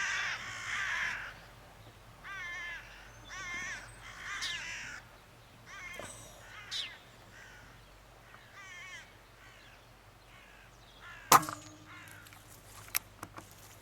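Crows cawing in a string of harsh, repeated calls, alarm calls raised after one of the flock has been shot down. The calls thin out after about seven seconds. Near the end comes a single sharp crack, followed by a couple of small clicks.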